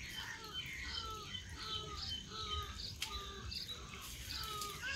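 Birds chirping: short, clipped calls repeated about twice a second over a faint low rumble.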